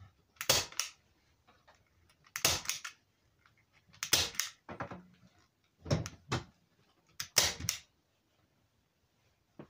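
Handheld staple gun firing staples through faux-fur rug fabric into a headboard: five sharp snaps, each a quick double click, about one and a half seconds apart, stopping about eight seconds in.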